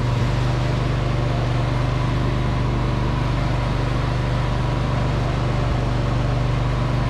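John Deere riding lawn mower engine running at a steady speed as the mower is driven, a constant even hum.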